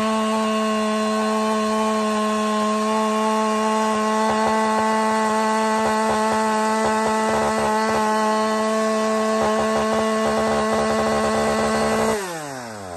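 Husqvarna 572XP two-stroke chainsaw held wide open while cutting along a pine log, running at a steady high pitch to make its AutoTune reset itself. About twelve seconds in the throttle is released and the revs fall away quickly.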